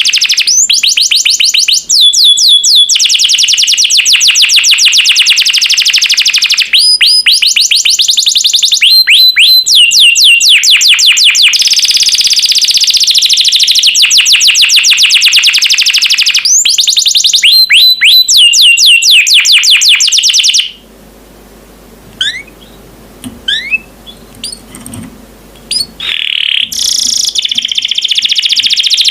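Domestic canary singing loud, rapid rolling trills and chattering phrases. About 21 seconds in the song breaks off into a quiet stretch of a few faint, scattered chirps over a low hum, and the loud trilling starts again near the end.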